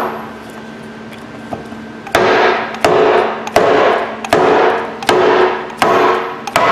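Metal hammer striking a wooden block to drive a tight part out of a 1/2-inch air impact wrench's housing: after about two seconds, seven even blows about 0.7 s apart, each with a short ring. The block is splintering under the blows.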